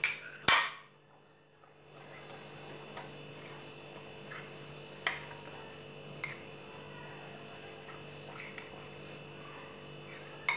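A steady electrical hum with a few faint, sharp clinks of a steel spoon against a glass bowl as semolina and curd are stirred into a thick batter; two louder clinks come right at the start.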